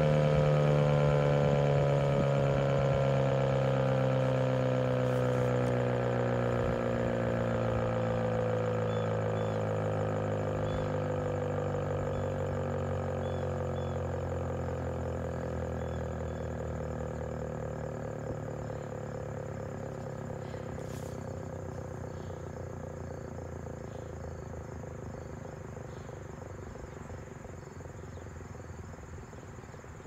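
ASC T-128 outdoor warning siren winding down after its Full Alert test, its tone sliding slowly lower in pitch and fading away. Crickets chirp faintly as it dies down.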